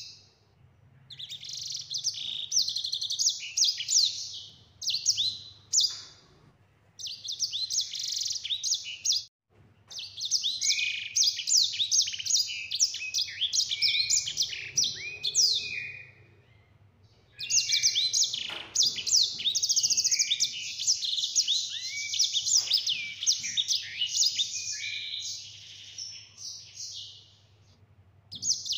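Caged sanger, a small canary-type finch, singing long, rapid rolling phrases of high whistles and trills. The song comes in four bouts separated by short pauses.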